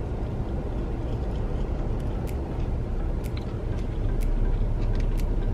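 Steady low rumble inside a parked car, a little louder from about four seconds in, with a few faint clicks of someone chewing a bite of burger.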